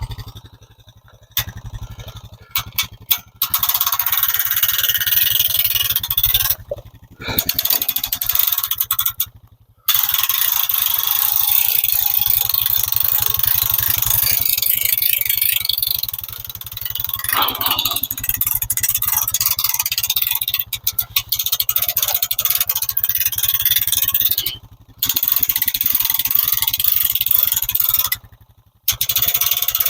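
Four-wheeler engine running under a dense scraping and rattling, with a steady low drone beneath. The sound cuts off abruptly several times and resumes.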